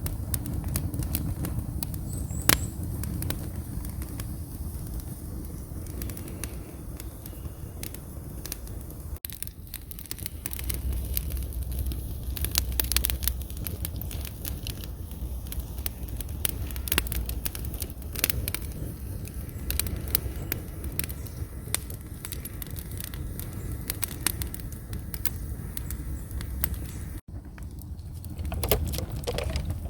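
Wood fire crackling in an open hearth: many sharp, irregular pops and snaps over a steady low rumble.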